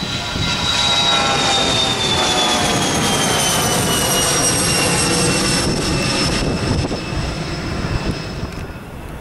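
Twin rear-mounted turbofans of a Bombardier Challenger business jet at takeoff power as it climbs away, a loud jet noise carrying a high whine that slides steadily down in pitch. The sound thins out near the end.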